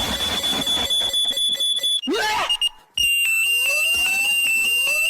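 Loud electronic alarm sound. A steady high-pitched tone breaks off about two seconds in. After a short gap a second, slightly lower tone starts, with quick regular beeps and rising whooping sweeps. It is a noise played to wake people up.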